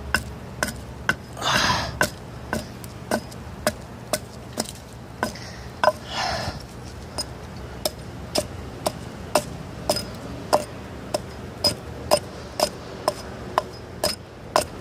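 Hatchet chopping and splitting a log into small pieces: sharp, regular strikes on wood at about two a second, with a longer, rougher noise twice.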